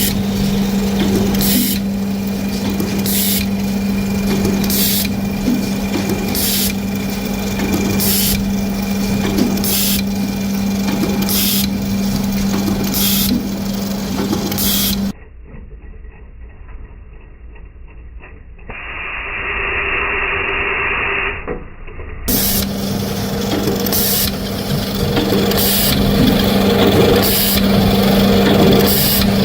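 Zipper-making machinery running with a steady low hum and a sharp stroke about every one and a half seconds. About halfway through it gives way to a quieter, muffled passage lasting about seven seconds, then steady machine noise returns.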